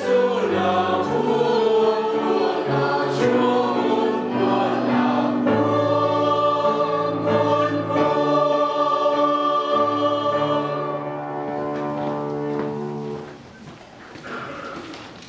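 Mixed choir of men's and women's voices singing a hymn in harmony, ending on a long held chord that is released about 13 seconds in, followed by quieter room noise.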